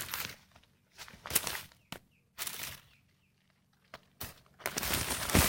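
Intermittent scuffing and rustling of soil being dug through by hand to unearth potatoes, with a short click about two seconds in and the loudest rustling near the end.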